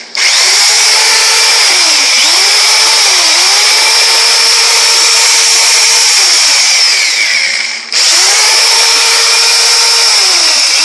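Performer jigsaw running unloaded after its bearing has been replaced. Its motor speed dips and comes back up a few times as the trigger is eased, then it winds down and stops about eight seconds in and starts again at once.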